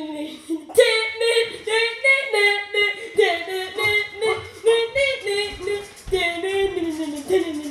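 A high-pitched voice singing a melody with no instruments, in short held notes.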